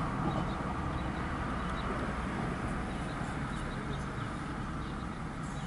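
A steady low rumble, with faint bird chirps scattered through it.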